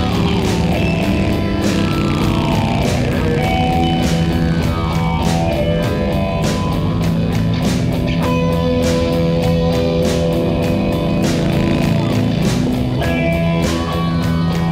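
Rock music with guitar over a steady drum beat, with falling guitar runs.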